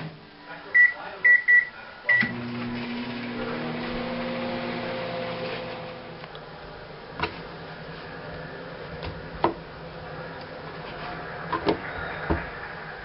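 A microwave oven door clicks shut, a few short high keypad beeps sound, and about two seconds in the microwave starts running with a steady hum. The hum eases after about six seconds, and a few sharp knocks follow as a knife slices a baked potato on a cutting board.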